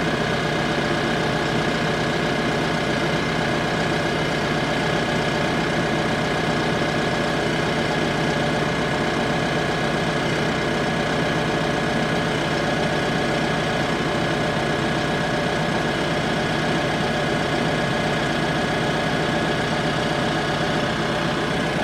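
Tractor engine idling steadily at about 900 RPM while its hydraulic pump pushes oil through a flow meter on the loader's third-function lines.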